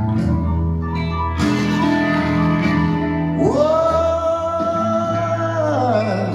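Music played back through Fleetwood Sound Deville horn speakers: guitar and singing, with one long held note that swoops up about halfway through and slides down near the end.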